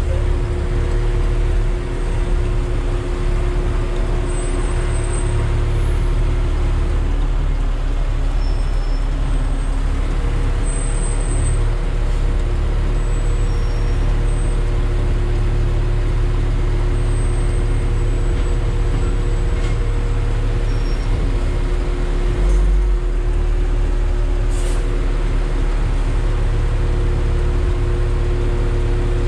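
Yard truck's engine running steadily, a constant low drone with a few steady tones.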